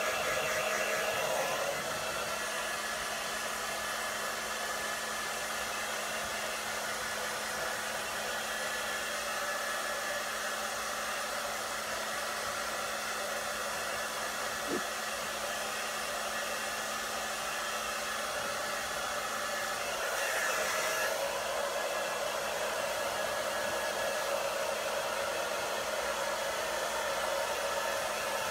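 Handheld hair dryer blowing steadily: a constant rush of air over a low motor hum, growing a little louder about two-thirds of the way through.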